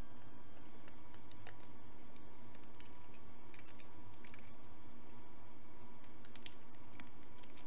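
Small clicks and light scraping as a hobby knife trims small 3D-printed plastic model beams. A short scrape comes a few seconds in and a cluster of clicks near the end, over a steady low hum.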